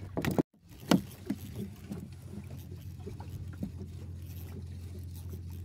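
Small wooden fishing boat at sea: a steady low hum with a few sharp knocks in the first two seconds, then light scattered ticks and patter.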